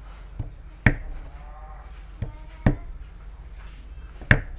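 Cleaver chopping through fresh areca nuts onto a wooden chopping board: three sharp chops roughly one and a half to two seconds apart, with two lighter taps between them.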